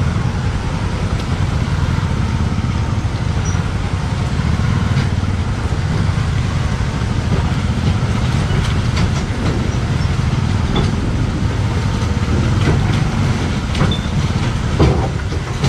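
Bajaj Pulsar NS200 motorcycle on the move: a steady low engine and wind rumble, with a few short knocks in the second half.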